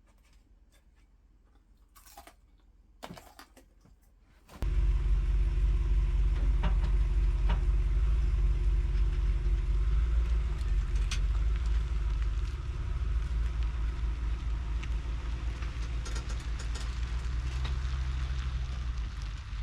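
Near silence with a couple of faint clicks, then about four and a half seconds in, a motor vehicle's engine rumble starts suddenly and runs steadily, easing slightly in level partway through.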